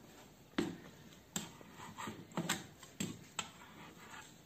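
Irregular sharp knocks and clicks, about half a dozen in four seconds, from hands working with a tool on something at ground level.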